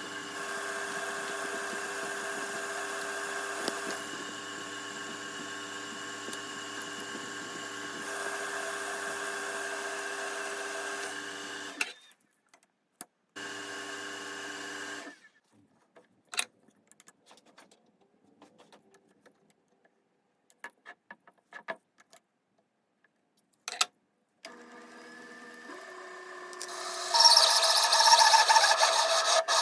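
A small machine tool's electric motor runs steadily, shuts off about twelve seconds in and runs briefly once more, followed by a few scattered clicks. The motor starts again, and near the end a much louder rasping cutting noise sets in.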